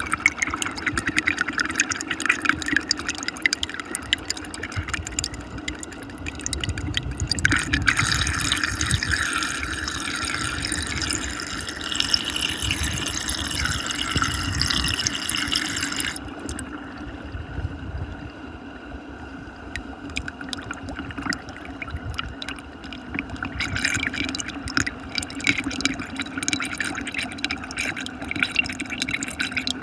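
Muddy water swirling fast in a whirlpool vortex, a continuous churning rush full of small splashes. About sixteen seconds in, the high hiss drops away and the rush turns duller for a while.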